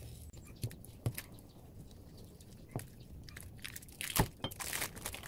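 Large kitchen knife slicing through sticky nian gao on a wooden chopping board: a few sharp knocks of the blade, the loudest about four seconds in, then a brief sticky peeling crackle as the slice clings to the blade.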